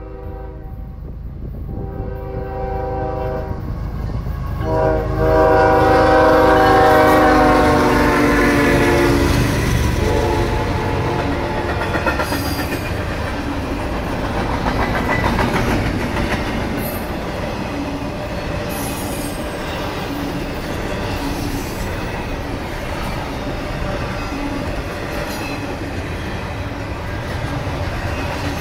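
CSX freight locomotive horn sounding: a blast ending about a second in, a short one around two to three seconds in, then a long loud blast from about five seconds that drops in pitch as the lead locomotives pass. After that, a steady rumble and clickety-clack of double-stack intermodal cars rolling past on the rails, with brief faint wheel squeals.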